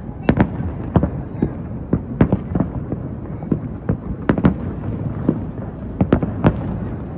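Fireworks display: shells bursting in a steady run of sharp, irregular bangs, about two a second, over a continuous low rumble.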